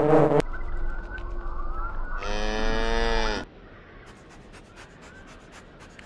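A cow mooing once, a single call of a little over a second about two seconds in.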